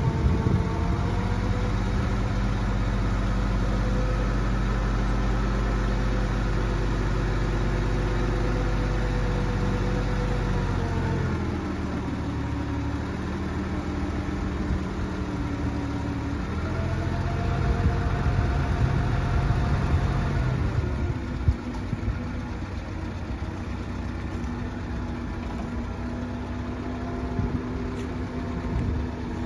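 1948 Willys CJ-2A's four-cylinder flathead engine running steadily while the hydraulic loader raises and lowers its bucket. Its speed drops about a third of the way in, picks up again a little past halfway, then settles lower, with a single knock about two-thirds of the way through.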